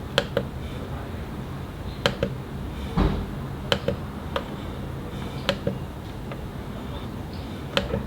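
Arrow buttons on a Canon Selphy CP1200 photo printer being pressed to step through photos. There are about six presses a second or two apart, most of them a quick double click, and a duller knock about three seconds in.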